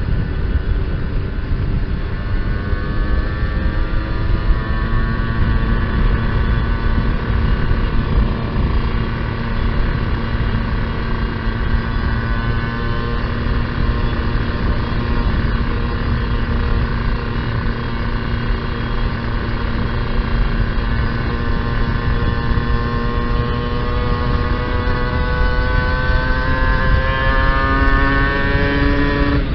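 Kawasaki Ninja 150 R single-cylinder two-stroke engine running under way on its rich-jetted stock carburettor, engine speed holding fairly steady and then rising gradually over the last few seconds, with wind and road rumble on the microphone.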